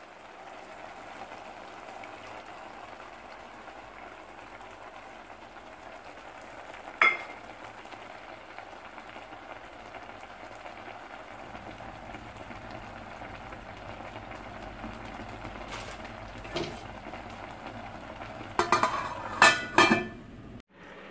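Pot of instant noodles and eggs simmering on a gas burner, a steady bubbling hiss. A sharp metal clank sounds about seven seconds in, and near the end a few loud clanks as an aluminium lid is set on the pot.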